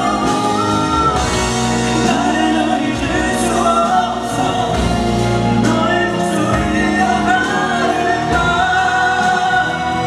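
Male vocal group singing a ballad live, with sustained, gliding vocal lines over amplified musical accompaniment.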